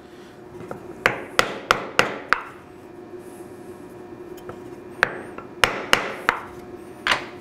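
Ball-peen hammer tapping on a wooden block to drive a Lovejoy jaw coupling onto a gearbox shaft. There is a quick run of five taps about a second in, then five more from about five seconds in.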